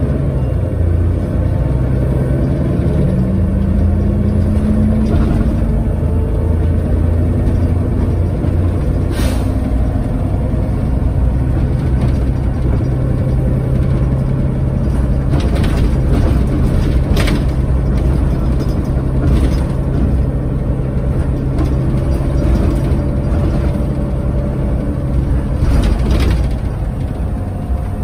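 Mercedes-Benz Citaro bus engine and ZF Ecomat automatic gearbox running under way, heard from inside the passenger saloon, with a whine rising in pitch a few seconds in as the bus pulls through a gear. Several short sharp knocks and rattles from the bus body come through over the steady drone.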